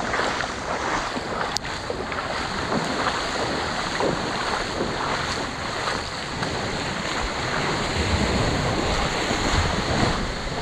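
Sea waves washing on a rocky shore, a steady rushing noise, with wind buffeting the microphone. A single sharp click about a second and a half in.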